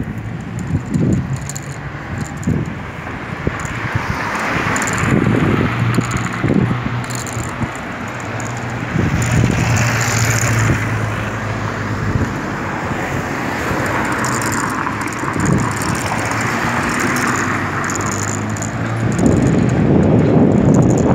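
Riding a bicycle along a city street in traffic: steady road noise and a low hum, with noise that swells and fades a few times as vehicles pass, and scattered short rattles and knocks.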